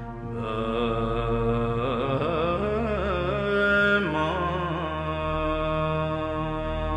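Tibetan Buddhist prayer chanted in a melodic, gliding voice over a low steady drone.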